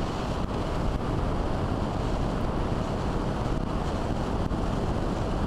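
Airflow buffeting the microphone of an onboard camera on a radio-controlled model plane in flight: a steady, low rushing noise with no clear motor tone.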